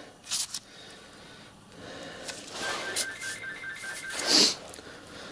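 Light scuffs and rubs as a machined cast iron model-locomotive steam cylinder is handled, the clearest a short scrape just after four seconds. A faint high beeping tone pulses in the background from about halfway through.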